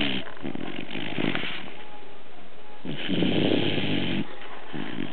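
Sleeping dog snoring: a softer breath near the start, then a longer, louder snore about three seconds in, and a shorter one near the end.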